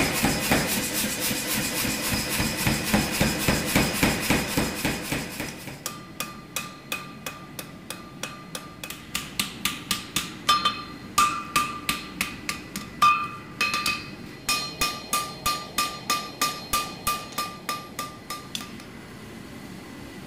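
Hand hammer striking a hot mosaic damascus chef's knife blade on a steel anvil. A fast, dense run of blows comes first, then separate ringing strikes about two to three a second, which stop shortly before the end.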